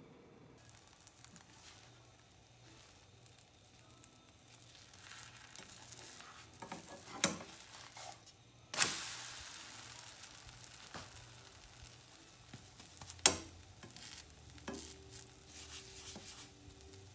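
Pancake batter sizzling in a nonstick frying pan, with a spatula scraping under it and a few sharp knocks against the pan. Just before nine seconds in, the pancake is flipped onto the hot pan and there is a sudden loud burst of sizzling that fades over the next few seconds.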